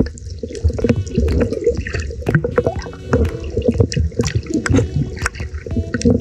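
Water heard through a camera held underwater: muffled sloshing and bubbling, with many irregular sharp clicks.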